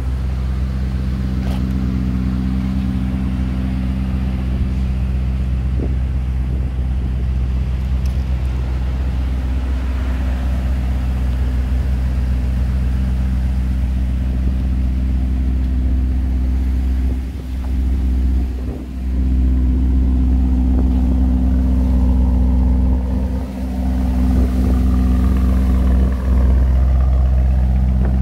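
Lamborghini Urus's twin-turbo V8 idling steadily with a low, even rumble.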